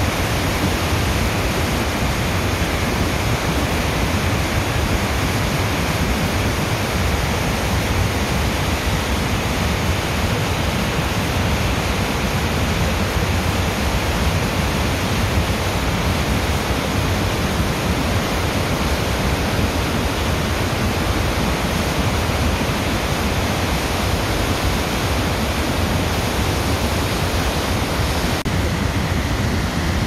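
The Rhine Falls: a large waterfall's loud, steady rush of white water pouring over rocks, an even noise with no break.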